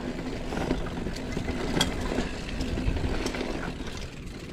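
Mountain bike riding down a dirt trail: a steady rushing noise of tyres and riding, with scattered clicks and knocks from the bike over the ground.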